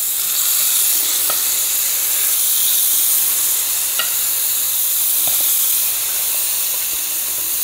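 Marinated pork fillet medallions sizzling in hot oil in a frying pan: a steady hiss with a few faint ticks.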